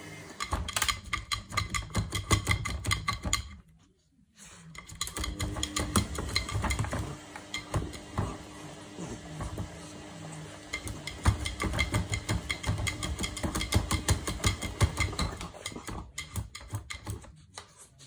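Beagle puppy's claws scratching and tapping rapidly on a front-loading washing machine's glass door, in quick runs of clicks with a short pause about four seconds in.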